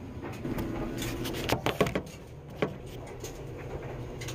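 A quick cluster of sharp knocks and clatter, then a single knock, as household things are handled. A steady low hum sits underneath.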